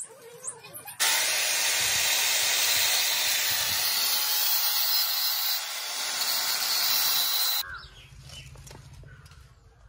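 Handheld angle grinder's disc grinding into a steel leaf spring, a loud harsh hiss that starts abruptly about a second in and stops suddenly about six and a half seconds later.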